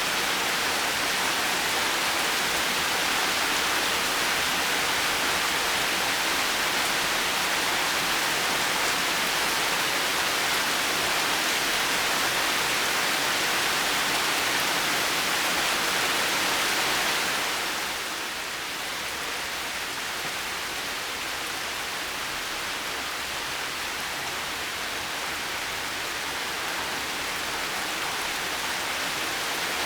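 Heavy rain falling steadily, a dense even hiss that eases a little about two-thirds of the way through.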